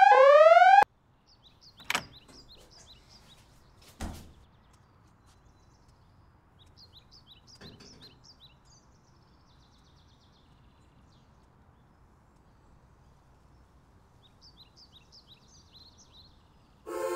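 A repeating electronic tone, each sweep rising in pitch, cuts off suddenly within the first second. Then birds chirp in a quiet wood, with a sharp click at about two seconds and a heavier door thunk at about four seconds. Music comes in right at the end.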